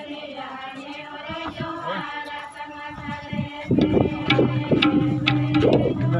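Music: singing, joined by drum beats and a strong low steady tone from a little over halfway through.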